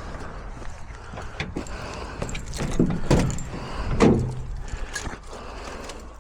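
Knocks and rattles of handling over a low steady rumble, the loudest thumps about three and four seconds in.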